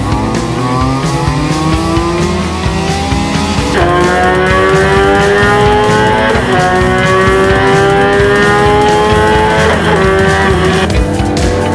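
Motorcycle engines run under load on a chassis dyno. First a touring bike's engine climbs in revs. About four seconds in, a BMW S1000RR's inline-four takes over, pulling up through the revs with two upshifts: the pitch drops sharply about halfway through and again near the end, then climbs again after each.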